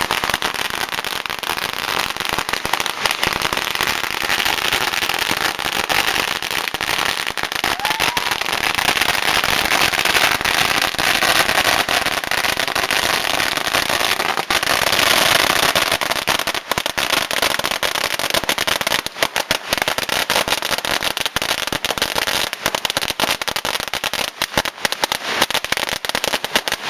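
A 100,000-shot string of firecrackers going off in one long, dense rattle of bangs. The bangs become more separate near the end.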